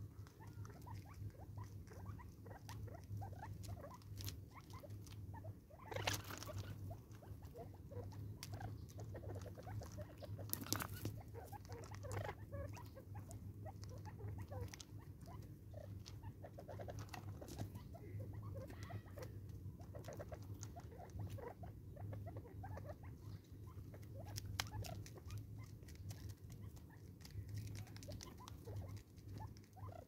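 Several spurfowl pecking seed from a jar and shuffling on gravel: irregular light ticks and scratchy rustles, with louder scrapes about six and eleven seconds in, over a steady low hum.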